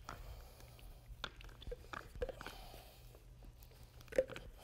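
Faint, scattered clicks and sticky crackling taps of work on a freshly coated epoxy floor: spiked shoes stepping in the wet epoxy and a bucket being handled, with one sharper click about four seconds in.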